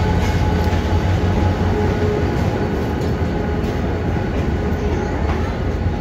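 Steady low rumble of a train running, with a few faint clicks.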